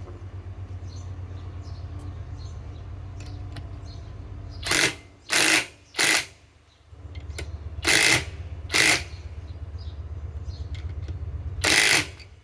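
Cordless compact impact wrench hammering steadily as it drives a lag bolt, stopping briefly about two-thirds of the way through and then starting again. Six short, much louder bursts break in over the hammering. The wrench is running on a 2.5 Ah battery that its user finds too weak for the job.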